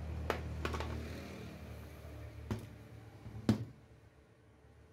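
HP 630 laptop's plastic body handled and turned over on a work mat: a low rumble of handling with a couple of light clicks in the first second, then a knock about two and a half seconds in and a louder knock about three and a half seconds in as it is set down.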